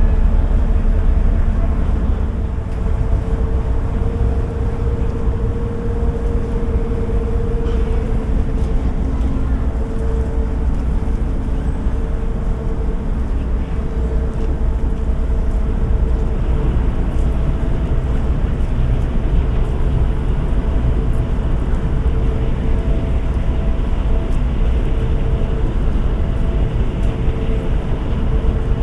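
Steady low rumble of the sightseeing boat Santa Maria's engine coming into port, with a constant hum over it.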